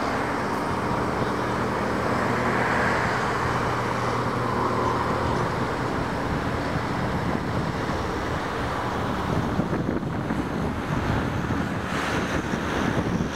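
ElDorado National EZ Rider II transit bus with a gasoline-electric series hybrid drive pulling away and driving off. Its steady hum fades about five seconds in, over a continuous rumble of road traffic.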